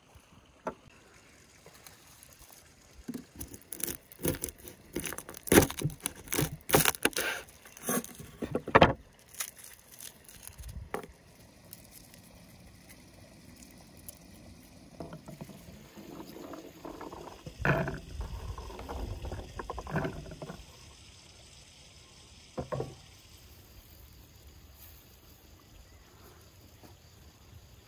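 Garlic being broken up and peeled by hand: a quick run of sharp crackles and snaps as the papery skins come away from the cloves. Later, dry rustling as a bundle of dried herbs is handled, and a single knock on the wooden table.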